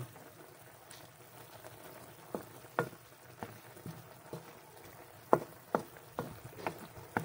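A wooden spatula stirs chicken, tofu and broccoli stems simmering in sauce in a wok, knocking and scraping irregularly against the pan from about two seconds in. A faint sizzle of the simmering sauce sits underneath.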